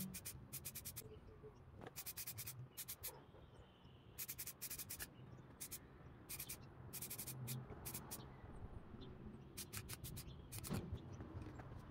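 Short bursts of fast scratching strokes, each burst a quick run of several strokes, repeating with brief pauses between. This is hand work on the small model car's body.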